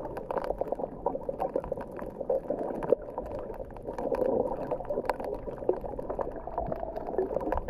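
Underwater coral-reef ambience heard through a submerged camera: a steady water noise scattered with many short clicks and crackles.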